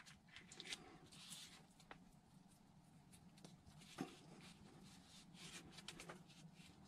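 Near silence with faint rustles and light clicks of hands handling and pressing foam glider wing pieces together, and one sharper tick about four seconds in.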